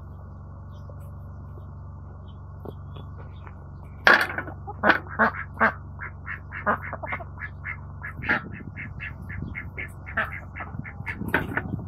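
Ducks quacking in a rapid run of short calls, about three a second, starting about four seconds in.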